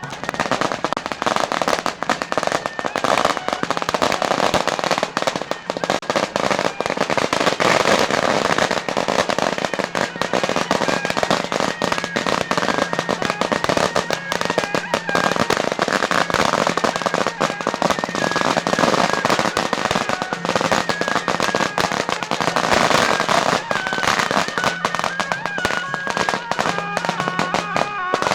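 A long string of firecrackers crackling in rapid, continuous bursts, with festival music playing underneath.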